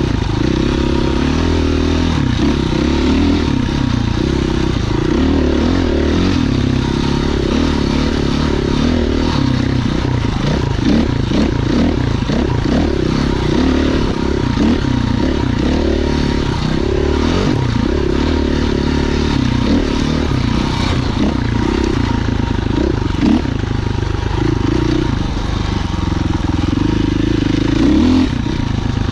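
Husqvarna FE 501's single-cylinder four-stroke engine being ridden, its note rising and falling as the throttle opens and closes, with scattered clatter from the bike.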